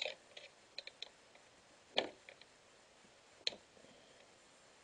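Scattered clicks and knocks of hands handling chainsaw parts while the carburetor's rubber sealing collar is worked into place. A few small sharp taps come in the first second, a louder knock about two seconds in, and another about three and a half seconds in.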